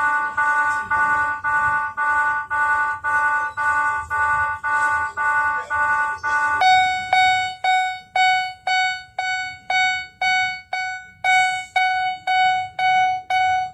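Japanese railroad-crossing warning sound ("kan-kan") from miniature level-crossing signals: a ding repeating about two and a half times a second. About halfway through it switches abruptly to another crossing's lower-pitched, brighter ding at the same pace.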